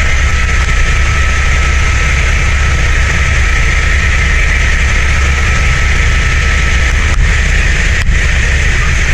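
Helicopter in flight: a loud, steady engine and rotor noise, a deep rumble under a hiss, with a faint steady whine that stops about seven seconds in.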